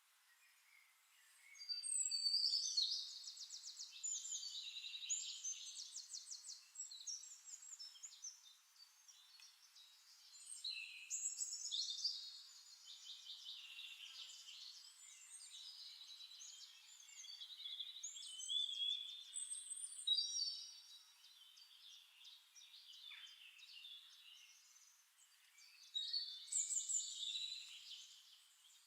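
Songbird singing in bursts of fast trills and warbling phrases, a few seconds apart, with short pauses between them.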